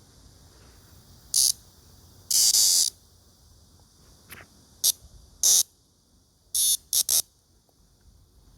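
A captured male black cicada (Cryptotympana atrata) giving harsh distress buzzes. It makes about seven short, loud, irregular bursts, the longest about half a second.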